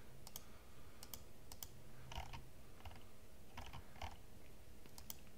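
Irregular clicks of a computer mouse and keyboard, about a dozen quick taps, over a faint steady hum.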